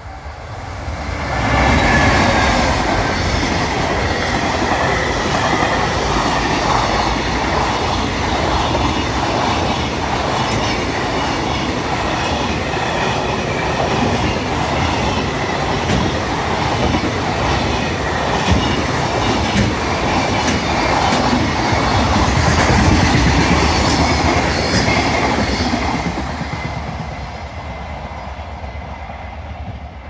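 Freight train hauled by a JR Freight EF210 electric locomotive passing close by at speed. The sound rises sharply about two seconds in as the locomotive reaches the crossing, then a long, steady rumble and clickety-clack of container wagon wheels over the rail joints, dropping off near the end as the train draws away.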